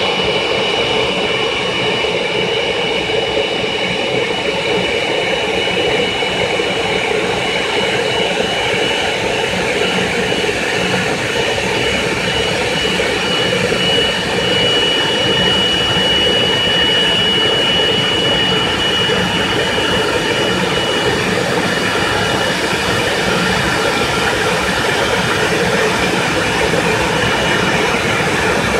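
Boeing 777-200ER's twin turbofan engines running at taxi idle as the airliner rolls in to park: a steady loud rush with a high, even whine that grows strongest midway as the aircraft draws near.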